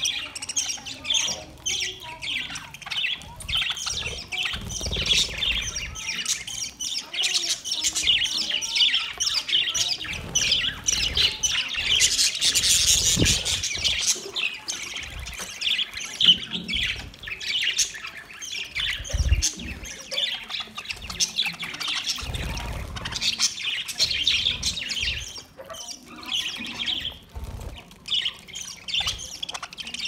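A flock of budgerigars chattering together in a dense, unbroken stream of short chirps and warbles, busiest about halfway through.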